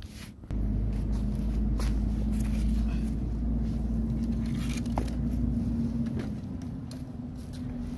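An engine running steadily, coming in abruptly about half a second in, with a low hum and one steady tone.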